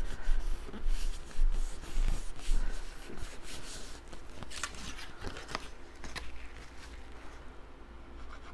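Cardstock being handled: paper rustling with light taps and scrapes, busier for the first three seconds and quieter after.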